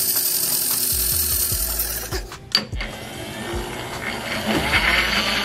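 Bridgeport milling machine's table power feed motor running, driving the table across with its handwheel spinning. About two and a half seconds in there is a sharp click and a short lull, then it runs again with a rising whine near the end.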